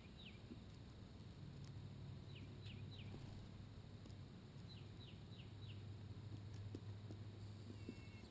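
Faint outdoor ambience: a bird calling a few times in quick clusters of three or four short, downward-sliding chirps, over a low steady hum.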